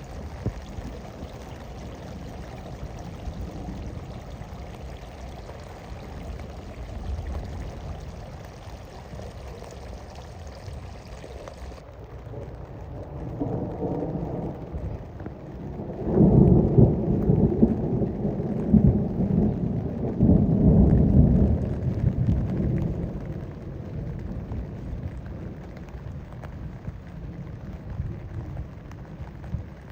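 Steady rain with a long roll of thunder that builds about a third of the way in, is loudest in the middle, then fades back to the rain.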